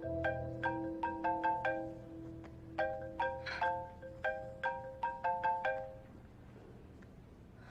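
Mobile phone ringtone: a marimba-style melody of quick struck notes, repeated in two phrases and stopping about six seconds in, as the call is picked up.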